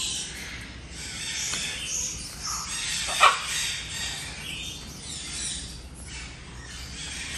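Aviary birds chirping throughout, with one short, loud macaw squawk a little over three seconds in.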